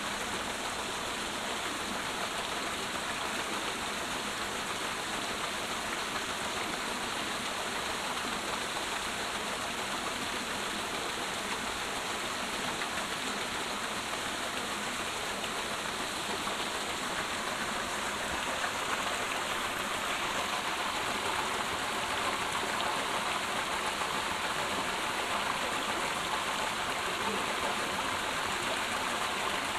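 Steady rushing water, growing a little louder about two-thirds of the way through.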